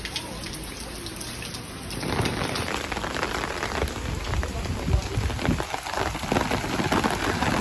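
Heavy rain falling and striking an umbrella overhead. It gets louder about two seconds in.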